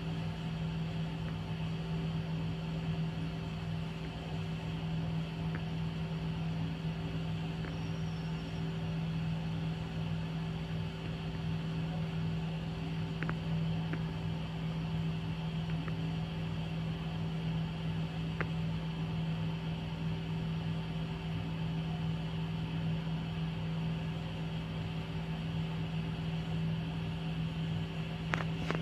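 Steady mechanical hum with a low droning tone and a hiss of noise over it, unchanging throughout, with a few faint ticks around the middle and near the end.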